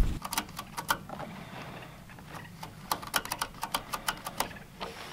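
Quick runs of light metallic clicks from a Stihl chainsaw's chain and bar as the warm chain is handled and loosened by hand, one run about half a second in and another from about three to four and a half seconds in.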